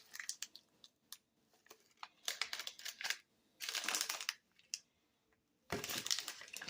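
Plastic granola-bar wrapper crinkling as it is handled, in three short bursts of rustling with small clicks between.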